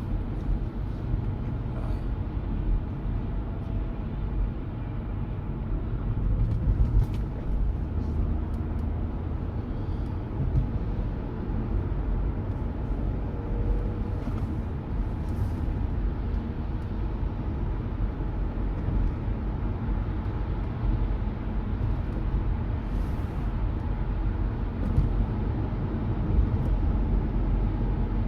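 Steady low rumble of tyres and engine inside a moving car's cabin.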